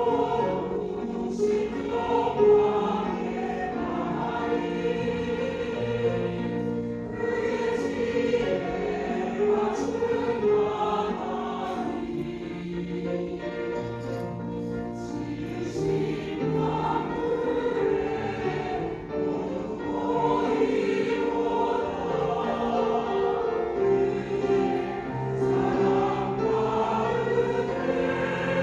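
Church choir singing a hymn anthem in harmony, with sustained low accompaniment underneath.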